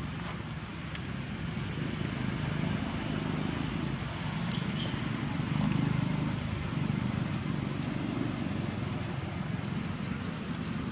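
Outdoor ambience: a steady high hiss with short, high rising chirps repeated every second or so, coming much faster near the end, over a low rumble.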